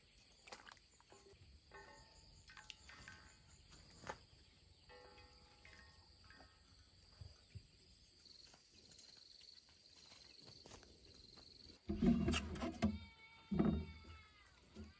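Insects chirping in a steady high drone, with faint short pitched notes now and then. About twelve seconds in, louder knocking and handling sounds start, along with a drawn-out pitched call that falls slightly in pitch.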